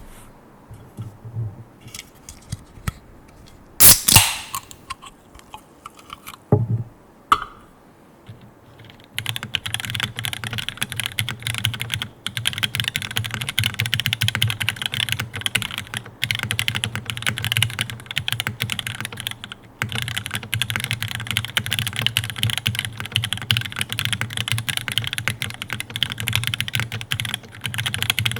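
Mechanical keyboard with TTC PT Black linear switches, GMK keycaps and a carbon fiber plate, being typed on. For the first several seconds there are a few scattered key presses and a couple of louder clacks. From about nine seconds in comes continuous fast typing, with a few short pauses.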